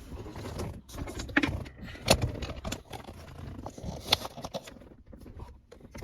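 Hard plastic clicks, rattles and scrapes from a car's center console trim pieces and wiring connectors being handled during reassembly, with the sharpest clicks about two seconds in and again about four seconds in.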